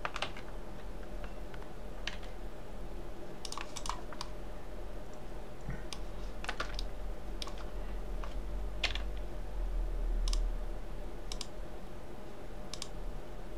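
Irregular clicks from a computer keyboard and mouse, about a dozen spread out, over a steady low hum.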